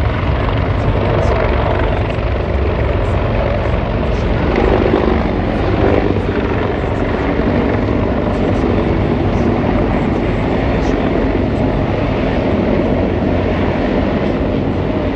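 Marine Corps CH-53 heavy-lift helicopters flying past with sling loads: steady, loud rotor and turbine noise with a strong low rumble.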